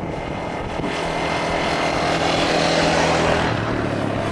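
Off-road vehicle engine running steadily while driving, its note dropping a little about three and a half seconds in.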